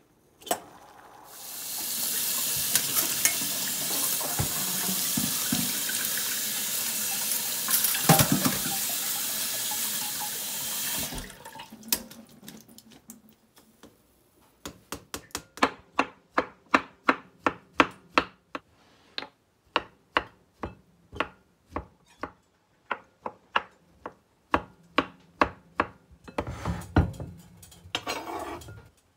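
A kitchen tap runs steadily for about ten seconds, then stops. Then comes a knife chopping cooked cauliflower on a wooden cutting board, about two to three strokes a second. Near the end there is a scrape and thump as the chopped cauliflower slides off the board into a glass bowl.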